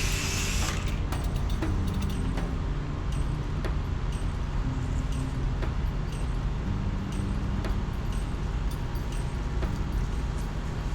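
Pressure washer's gas engine running steadily. A loud hiss of spray cuts off about a second in, leaving the engine drone with scattered light clicks.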